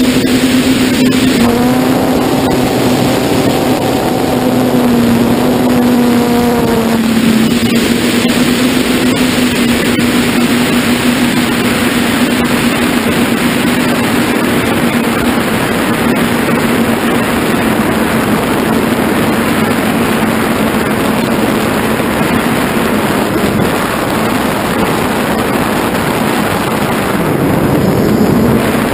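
FPV drone's electric motors and propellers droning steadily, heard through its onboard camera, with heavy wind rushing over the microphone. A pitched hum with overtones is clearest in the first several seconds, after which the wind rush covers most of it.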